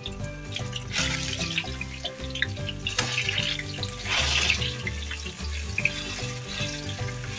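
Hot oil in a kadai sizzling in surges as batter-coated banana pieces go into the pan and are stirred, about a second, three seconds and four seconds in. Background music plays under it.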